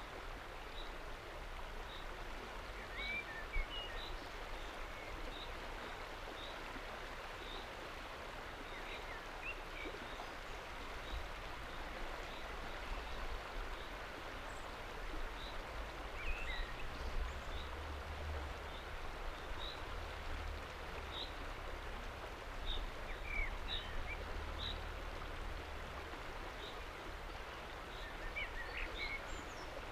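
River water rushing steadily past a rock shelf, with a small bird repeating a short high call about once a second and a few lower chirps now and then.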